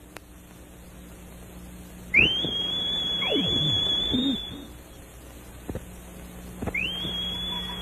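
A loud, shrill two-fingered whistle: the note shoots up and holds steady for about two and a half seconds. A second whistle of the same shape begins about four seconds later, near the end.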